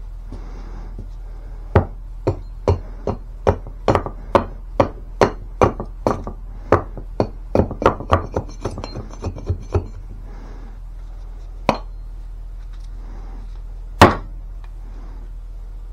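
Hickory-handled camp axe chopping into very hard wood: a quick run of about twenty blows, two to three a second, then two single blows, the last the loudest.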